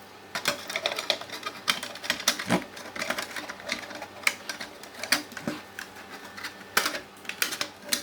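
Irregular clicks, taps and knocks of a power supply's metal housing being fitted back on and handled, with a few heavier clunks that ring briefly.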